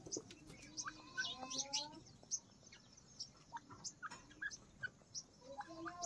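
Short, high bird chirps, two or three a second, with a few soft lower calls in the first two seconds, from a feeding grey francolin (teetar) and its surroundings.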